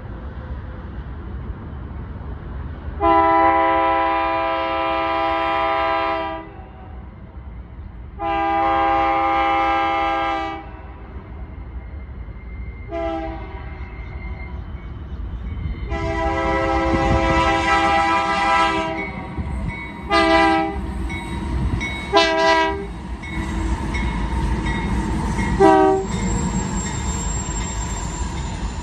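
Diesel freight locomotives' multi-chime air horn sounding a chord over the steady low rumble of the passing double-stack train: long, long, short, long, the pattern of a grade-crossing signal, then several short toots.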